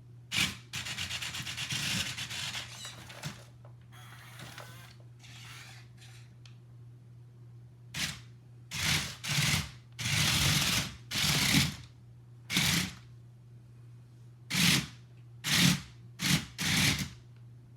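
Rubbing and scraping of objects being handled: a long scrape for the first three seconds, then a run of about ten short rubs in the second half, over a steady low electrical hum.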